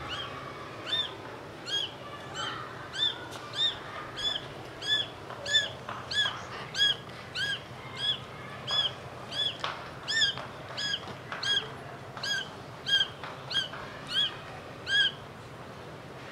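A Persian kitten, two to three weeks old, mewing over and over. Each mew is short and high and rises then falls, coming about two a second until it stops near the end.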